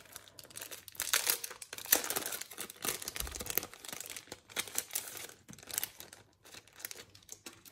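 Clear plastic wrapping crinkling as it is pulled off a small binder card divider and crumpled by hand, in uneven crackles.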